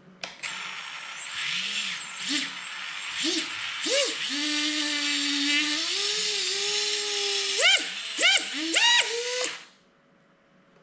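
Small FPV quadcopter's brushless motors spinning up on the bench while the drone is held down by hand, a whine whose pitch rises, holds and falls with the throttle. Near the end come several quick throttle blips, each a short rising whine, before the motors cut off suddenly.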